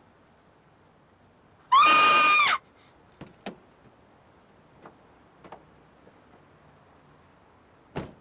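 A vehicle horn gives one short, loud blast of under a second. Then come a few light clicks and knocks as the truck's cab door is opened, and a single knock near the end.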